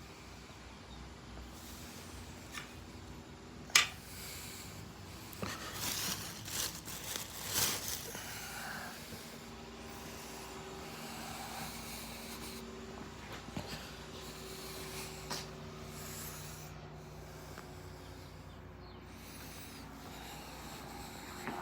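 Cooling fans running with a steady hum, with rubbing and handling noises on the case and one sharp click about four seconds in.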